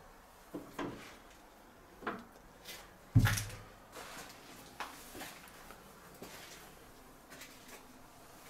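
Scattered knocks and thuds, with the heaviest a deep thump about three seconds in, then a few faint ticks.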